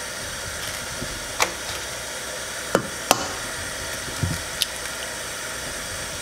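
Eggs cracked on the rim of a stainless steel mixing bowl: a handful of sharp taps and cracks, spread over a few seconds, over a steady background hiss.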